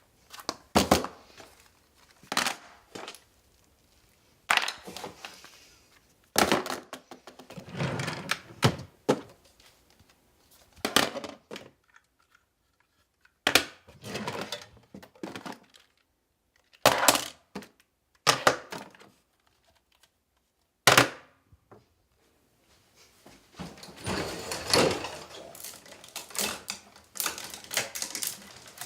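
Household objects being rummaged through, knocked and dropped: a string of irregular thuds and clatters with rustling between them, busiest near the end.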